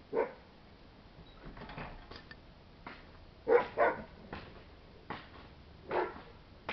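A dog barking off and on in short single barks: one at the start, a quick pair about three and a half seconds in, and another about six seconds in, with fainter ones between.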